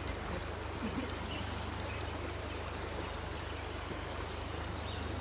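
Steady outdoor background noise with a low hum underneath and a few faint ticks in the first two seconds.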